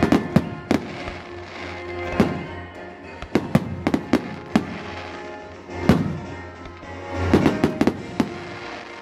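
Fireworks going off: sharp bangs and cracks from aerial shells, irregularly about every second, with a quick cluster near the end, over background music.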